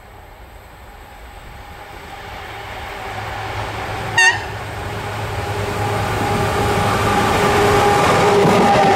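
HŽ class 1141 electric locomotive approaching, its rumble and hum growing steadily louder. One short horn toot sounds about four seconds in.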